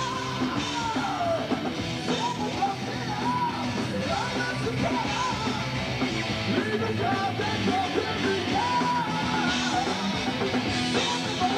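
Heavy metal band playing live, electric guitars, bass and drums, with a high yelled vocal line held and sliding over the band, on a lo-fi home camcorder recording.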